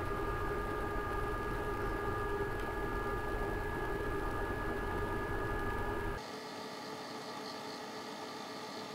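EcoFlow Delta 2 Max portable power station's cooling fans running at full speed while it AC-charges at about 1.7 kW: a steady whir with a few steady tones. About six seconds in, the sound cuts abruptly to a quieter, thinner steady hum.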